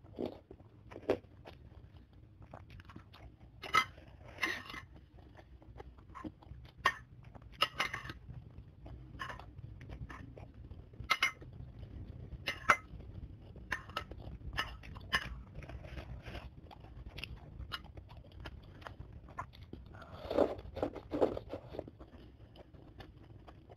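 Close-miked mouth sounds of a person chewing a mouthful of bakso tahu and noodles in spicy broth, with irregular sharp crunchy clicks and smacks. A louder cluster comes about twenty seconds in.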